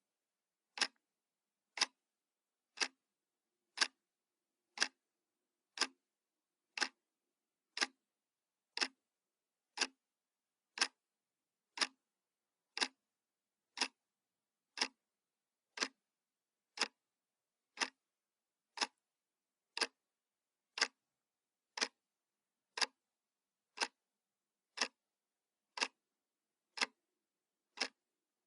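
Clock ticking sound effect: a steady, even run of single sharp ticks, one each second, marking the countdown.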